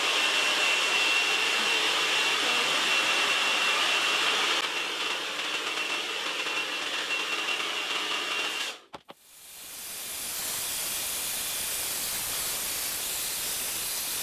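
Hand-held hair dryer blowing, with a steady high-pitched whine over the rush of air. About nine seconds in it cuts out for a moment, then comes back as a plain even hiss without the whine.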